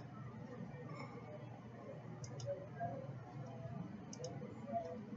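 Quiet room noise with a few faint, short clicks, coming in pairs about two seconds in and again about four seconds in.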